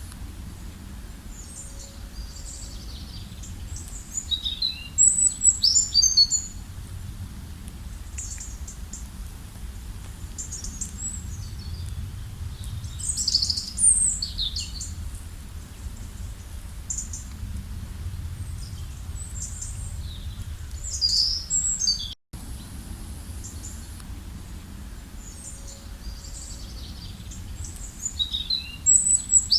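Several songbirds singing, with bursts of quick high chirps and trills coming in clusters every few seconds over a steady low rumble. The sound cuts out for a split second about two-thirds of the way through.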